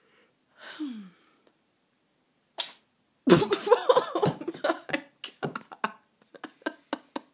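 Domestic cat sneezing in a fit: one sharp sneeze about two and a half seconds in, then a fast, loud run of sneezes, followed by a string of smaller, weaker sneezes.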